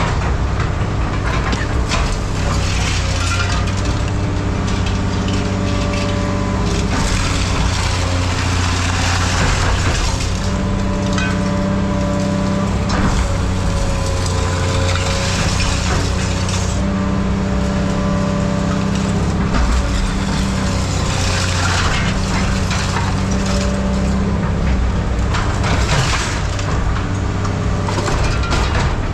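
Heavy scrap-handling machine's engine running steadily under load, with a hydraulic whine that rises and drops away in stretches as the arm works. Scrap metal clanks and crunches at intervals as pieces are gripped and moved.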